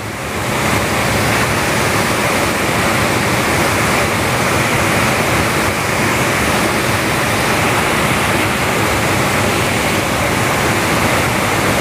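Water pouring over a lake's overflow outlet: a steady, loud rush of falling water.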